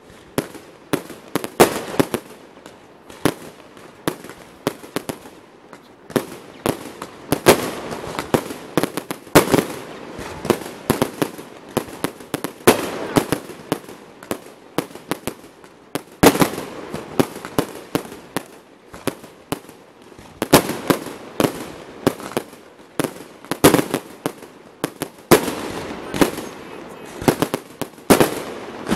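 Aerial fireworks display: shells bursting in a dense, irregular series of sharp bangs, often several a second.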